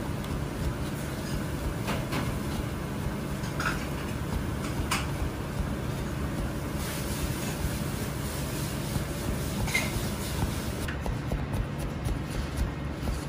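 Chinese cleaver chopping and mincing pork back fat on a plastic cutting board: quick repeated chops knocking on the board.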